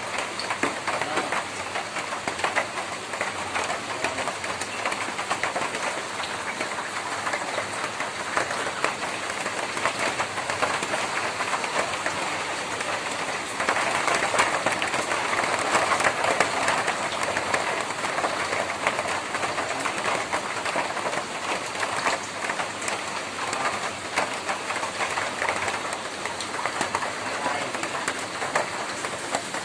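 Rain falling on a tin roof: a dense, steady patter of drops on the metal that grows louder for a few seconds about halfway through.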